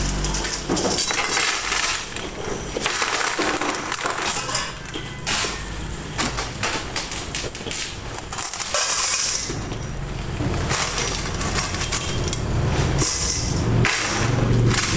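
Loose steel nails clattering and jingling as handfuls are scooped and dropped into stainless steel scale bowls, a dense, irregular run of metallic rattles.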